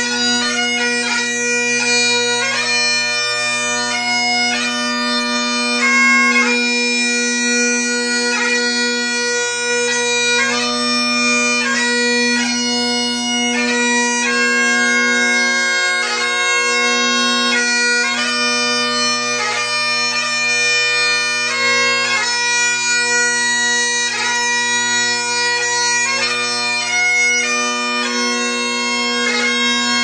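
Great Highland bagpipe playing a slow melody over steady drones: long held chanter notes, each change marked by quick grace notes.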